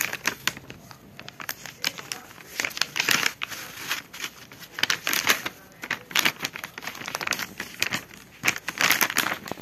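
Soft plastic wrapper of a Huggies baby-wipes pack crinkling as hands handle it, work its flap and pull a wet wipe out. Irregular crackling that comes and goes.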